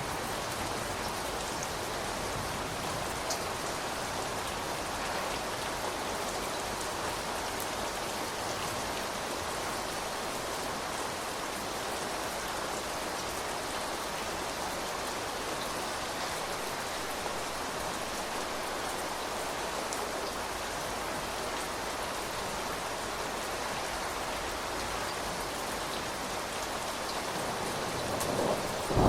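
Steady rain falling and pattering on surfaces, with a few louder drops. Near the end a roll of thunder starts to build.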